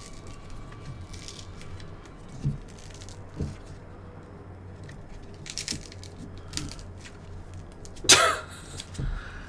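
Handling sounds of food and utensils at a table: a few soft knocks and clicks, then a louder, longer sound about eight seconds in.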